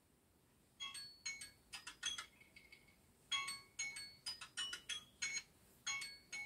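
Phone alarm ringing: a run of short, high, chime-like notes, two or three a second, starting about a second in.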